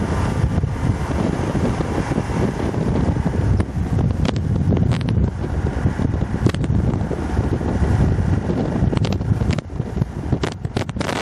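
Wind buffeting the camera microphone, a steady loud rumble with scattered sharp clicks and pops.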